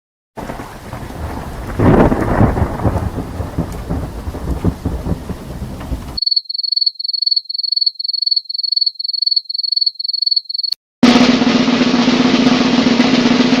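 A string of separate sound effects. First a rumbling thunder-like noise that swells loudly about two seconds in, then rapid high-pitched electronic beeps, about three a second. Near the end comes a loud hissing sound with a steady low buzz in it.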